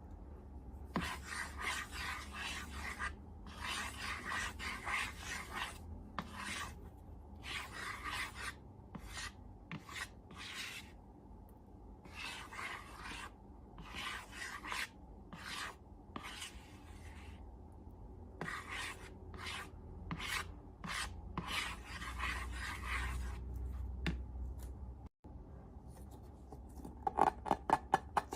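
Slime being worked and mixed, giving repeated rubbing, scraping strokes of under a second each, with short pauses between them. Near the end these give way to a quick run of crackly clicks.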